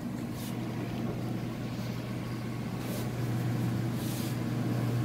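A steady low mechanical hum, growing slightly louder, with a few brief soft rustles or scrapes on top.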